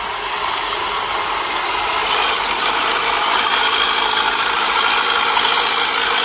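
Heavy earth-moving machinery running, with a steady mechanical clatter over the engine.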